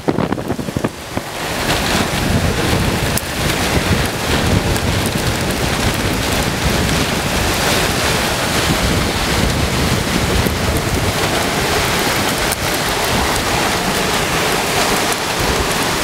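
Heavy wind-driven rain and strong straight-line winds in the core of a high-precipitation supercell, buffeting the microphone. A loud, dense, steady hiss that builds over the first two seconds, with low wind rumble on the microphone throughout.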